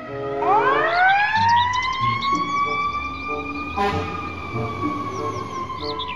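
Fire engine siren starting up, rising in pitch over about a second and a half, then holding a steady wail that sags slightly near the end. A brief burst of noise cuts in about four seconds in.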